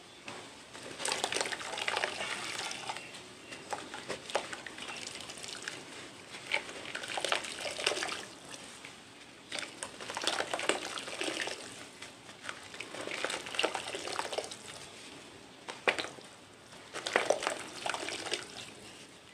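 Soft, chalky white cement chunks crumbled and crushed by hand over a clay pot: gritty crunching and crackling in repeated bursts every couple of seconds, with sharp cracks and powder pattering down into the pot.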